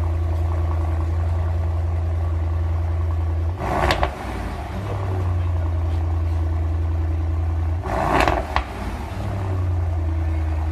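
Mercedes-AMG GT 63 S 4-door's twin-turbo V8 idling with a steady deep rumble, blipped twice about four seconds apart; each short rev ends in a sharp crack from the exhaust.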